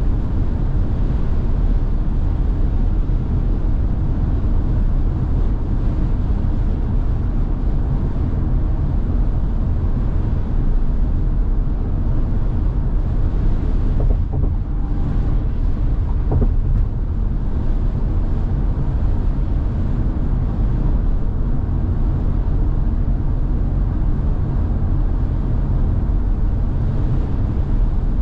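Steady low rumble of road and wind noise inside the cabin of a moving Tesla Model Y, an electric car with no engine note.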